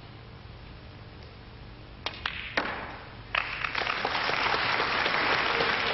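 Snooker break-off: a hushed arena, then about two seconds in a few sharp clicks of the cue and cue ball striking into the pack of reds. About a second later audience applause starts and carries on steadily.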